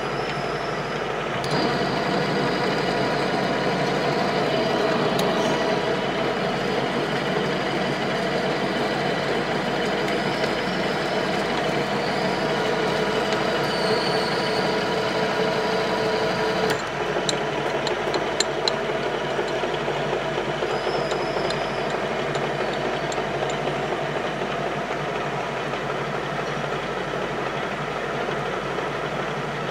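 Metal lathe running with its spindle at about 400 rpm, a steady machine whine of motor and gears, as it single-point cuts a thread on a stud with a T5K10 carbide tool. The sound gets louder about a second and a half in, and a few sharp clicks come a little past halfway.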